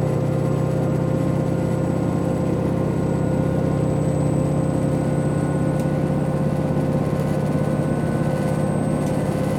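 N-DMF13HZH diesel engine of a KiHa 261 series railcar running at a steady note, with a thin high-pitched whine above it, heard from inside the car.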